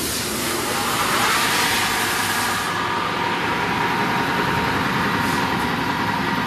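Wide belt sander running just after start-up, its motor and belt giving a steady hum with a whine near 1 kHz that settles in about a second in. A loud hiss over it cuts off about three seconds in.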